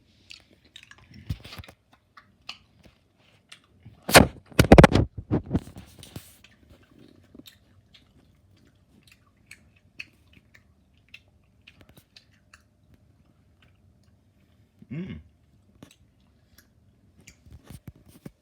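Close mouth sounds of a gumball being chewed: scattered crunchy clicks, with a burst of loud knocks about four seconds in and a short hum near fifteen seconds.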